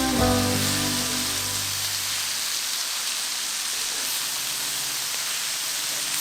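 Vegetables sizzling steadily in hot oil in a skillet, a even hiss, as the last held note of a background song fades out in the first two seconds.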